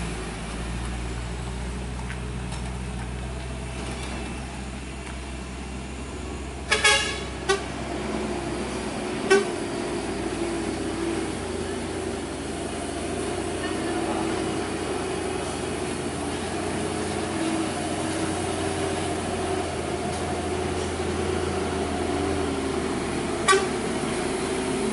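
Heavy diesel trucks running slowly, with short vehicle horn toots: a pair about seven seconds in, another a couple of seconds later, and one more near the end.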